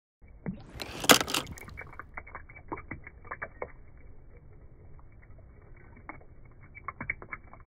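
Water in a plastic toy water table: one loud splash about a second in, then water trickling from the slide and dripping into the pool in many small irregular drips.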